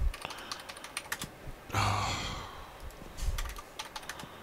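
Typing on a computer keyboard: scattered key clicks, with a short rush of noise about two seconds in.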